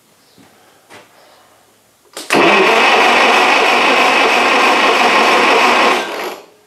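Wisconsin THD four-cylinder engine being cranked over by its starter for about four seconds, loud and even, without firing. It cuts off after the failed start attempt.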